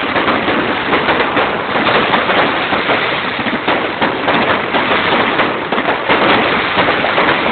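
Fireworks going off in a dense, continuous crackle of many rapid small bangs, with no pause.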